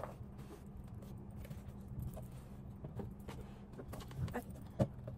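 Light clicks and knocks of a plastic portable blender jug being handled and set down on a wooden table, with one sharper knock near the end, over a steady low hum.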